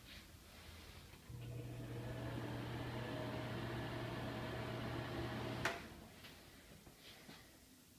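Bathroom exhaust fan switched on: its motor hums steadily with an airy whir, then it is switched off with a click about six seconds in.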